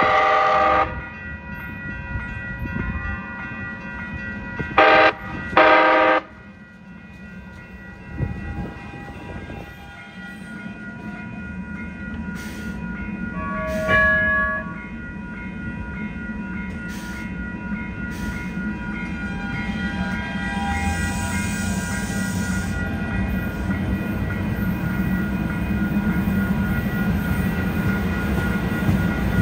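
Light-rail train horn: one blast, then two short blasts about a second apart, followed by the low rumble and wheel noise of a Siemens P2000 light-rail train running past, which grows louder toward the end. A brief short tone sounds about halfway through.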